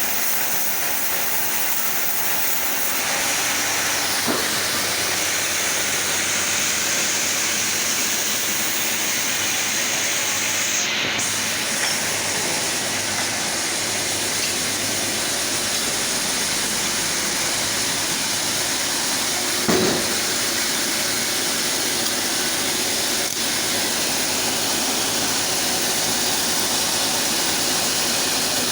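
Chainsaw running steadily under load while ripping lengthwise through a sapodilla log. It makes a continuous hissing rasp with one brief knock about two-thirds of the way in.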